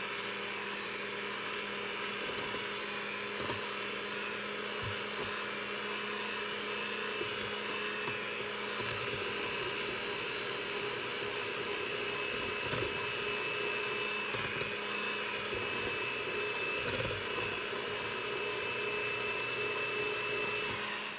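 Electric hand mixer running steadily, a motor whine with a few constant tones, its twin wire beaters whisking crepe batter in a stainless steel bowl.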